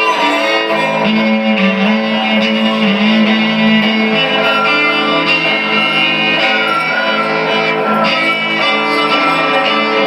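Instrumental passage of a live song: a violin bowed with vibrato over guitar accompaniment, with no singing.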